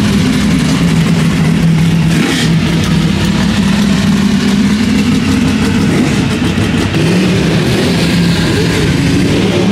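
Sprint car V8 engines running on a dirt track as the cars lap. The engine note is loud and steady and wavers slightly in pitch.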